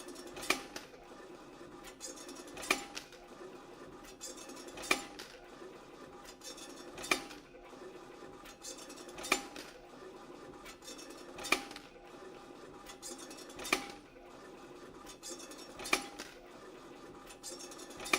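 YHM FMB-1 CNC wire bending machine running a hook-forming cycle. A sharp metallic clack repeats about every two seconds over a steady mechanical running and light clatter.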